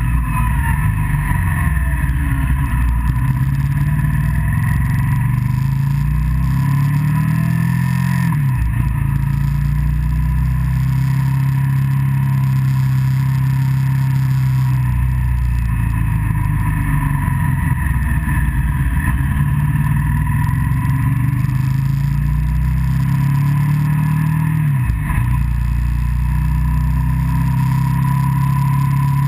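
Motorcycle engine running under way, its note rising and falling with the throttle and dropping sharply then recovering twice, about eight and twenty-five seconds in.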